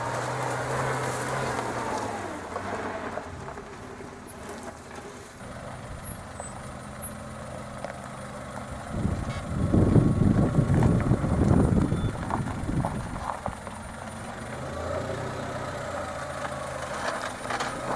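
An off-road 4x4's engine running at low speed as it crawls over rocky ground, with a loud, rough burst of noise lasting about three seconds in the middle.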